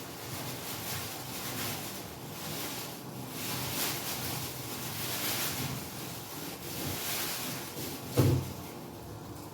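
Rustling and handling noise as the old shower head is worked loose from its pipe, with one knock about eight seconds in.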